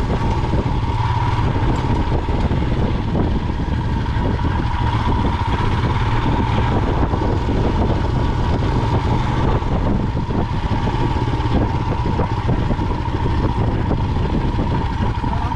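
Royal Enfield Himalayan's single-cylinder engine running steadily while being ridden, with a constant whine over the engine rumble.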